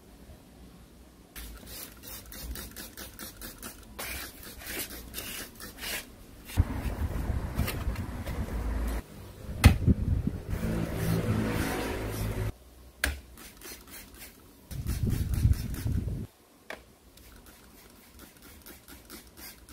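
Trigger spray bottle squirting onto rusty jackhammer parts in a metal tray, in runs of quick squirts, while steel parts are scraped, moved and set down on the tray. A sharp metal knock about ten seconds in is the loudest sound.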